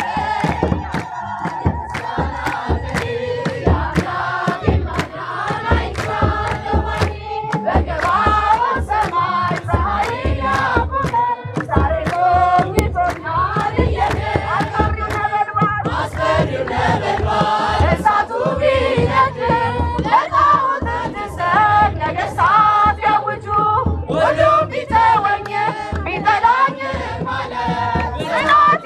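A crowd of women and children singing an Ethiopian Orthodox hymn together, to the steady beat of a hand-played kebero drum and hand clapping.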